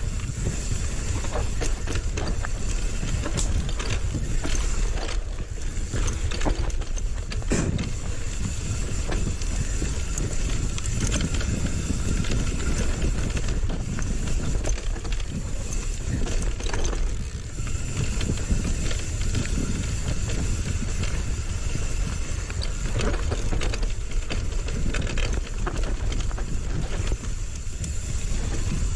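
Mountain bike descending a dirt singletrack: continuous wind rush over the microphone and tyre rumble on the trail, with frequent knocks and rattles from the bike as it hits roots and bumps.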